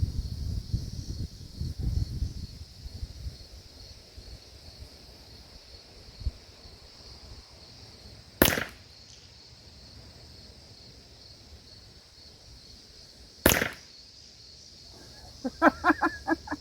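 Two sharp cracks from a factory Ruger 10/22 rimfire rifle firing .22 LR SK Rifle Match rounds, about five seconds apart. Wind buffets the microphone in the first couple of seconds.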